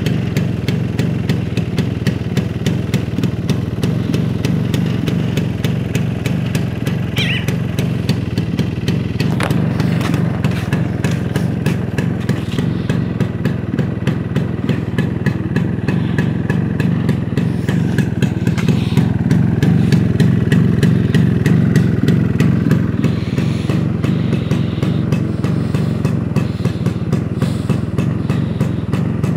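Small motorcycle engine idling steadily, with a fast, even putter that swells slightly about twenty seconds in.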